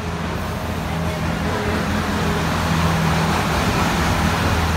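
Wildlife Express Train steam locomotive pulling slowly into the station, a steady low hum and rumble that grows louder as it draws alongside.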